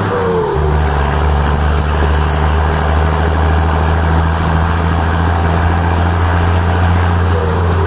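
Powerful engine idling with a deep, steady drone; its note settles slightly lower about half a second in, and a brief falling whine sounds at the start and again near the end.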